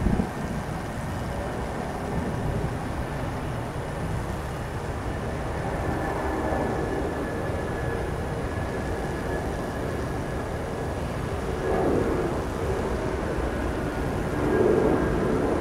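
Jet engines of a twin-engine widebody airliner running near idle as it taxis onto the runway: a steady rumble with a thin high whine that drifts slightly down, swelling a little a few times.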